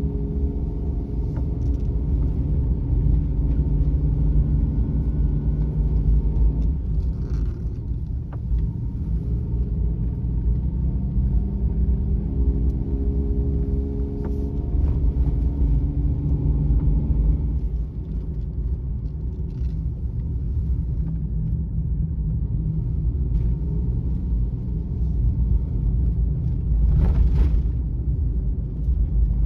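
Suzuki Every kei van's 660 cc three-cylinder engine and tyres heard from inside the cabin while driving, a steady low rumble. The engine note stands out twice in stretches of several seconds, and there is a short rushing noise near the end.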